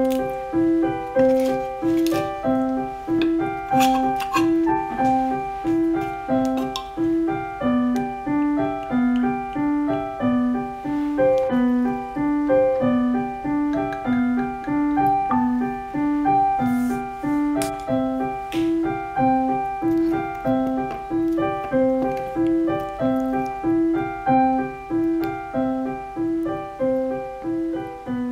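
Solo piano background music: a gentle pattern of notes repeating at a steady, even pulse.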